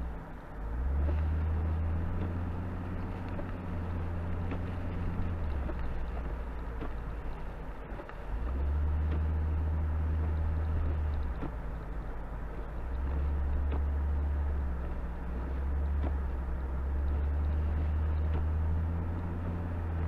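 Car driving on a snowy road, heard from inside: a steady low drone of engine and road noise that swells three times in long stretches and eases in between.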